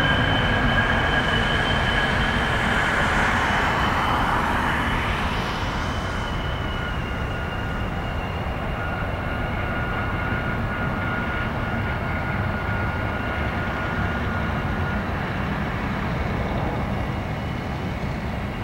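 Airbus A320's CFM56 turbofan engines at takeoff thrust as the jet lifts off and climbs away: a deep rumble with steady high whining tones on top, fading gradually.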